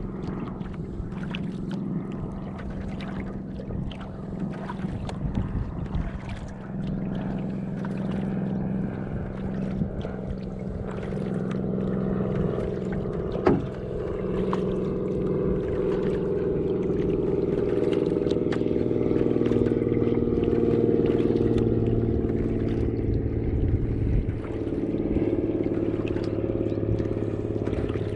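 Canoe paddling on calm water: repeated splashes and drips from the paddle along the hull, over a steady low engine hum that grows louder through the second half.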